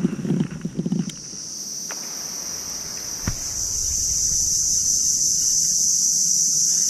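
Insects droning in one steady, high-pitched note that swells louder over the first few seconds. Low bumps come in the first second and a sharp click about three seconds in.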